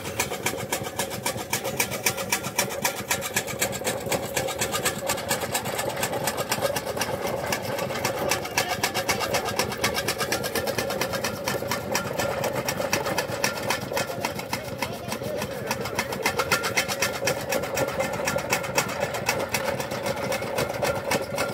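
Donkey-driven gear drive of a tokka (fodder chaff cutter) running: a rapid, even mechanical clatter of gears with a steady whine underneath.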